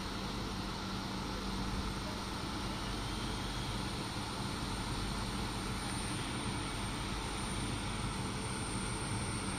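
Steady drone and low hum of Indian Railways electric locomotives as a train approaches slowly.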